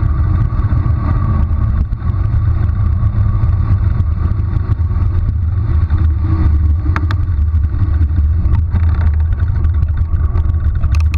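Steady, loud low wind rumble on a bicycle-mounted GoPro's microphone as the bike coasts downhill at speed, with a faint click about seven seconds in and another near the end.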